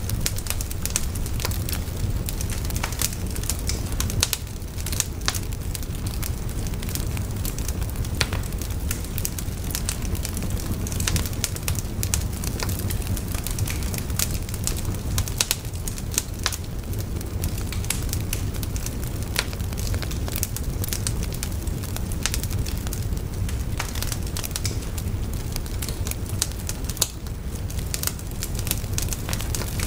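A wood fire burning, with a steady low rumble and frequent irregular crackles and pops from the burning wood.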